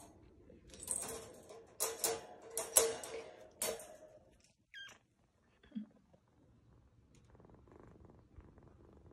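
Kitten purring, with a few seconds of rustling and sharp metallic clinks near the start, and a brief high squeak around the middle.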